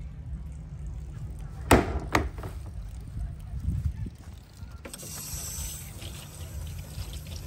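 Two loud knocks close together about two seconds in, as a plastic portable toilet's door is opened and shut, over a steady low rumble of wind on the microphone. A hiss starts about five seconds in.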